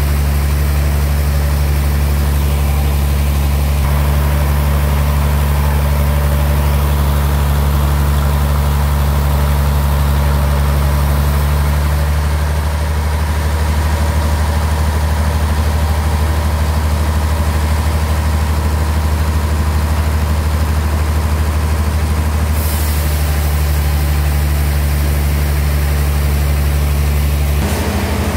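Sawmill bandsaw machinery running steadily with a loud, deep, even hum. The hum changes slightly in pitch shortly before the end.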